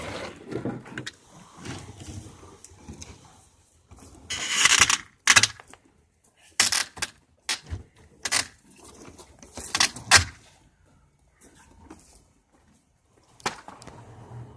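Metallic clatters and scrapes as a shipping tie-back is worked off a prehung door frame: a rattling scrape lasting most of a second about four seconds in, then several sharp knocks and clanks with pauses between.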